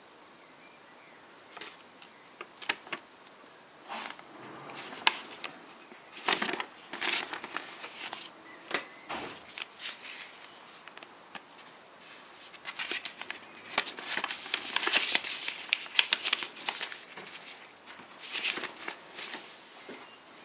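Paper instruction leaflets being folded, unfolded and handled: crisp rustling and crinkling in irregular bursts, busiest about six to eight seconds in and again from about thirteen to seventeen seconds.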